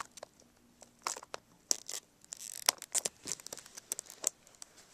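Plastic packaging crinkling and crackling as it is handled, with irregular sharp clicks and a short crinkly stretch about two and a half seconds in.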